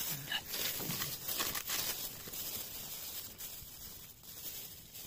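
Rustling and crinkling in short bursts, busiest in the first two seconds, then thinning out and getting quieter.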